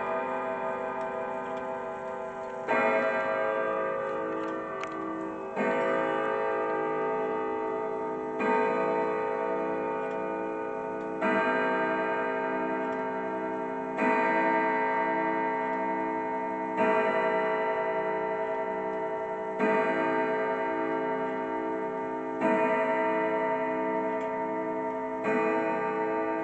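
Urgos triple chime grandfather clock striking the hour on its chime rods: nine evenly spaced strikes, about one every three seconds, each ringing on and fading into the next.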